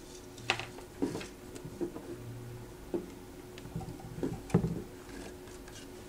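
A parrot pecking and chewing at a cardboard toilet-roll toy: irregular taps, clicks and scrapes, a few of them sharper, about half a second, one second and four and a half seconds in.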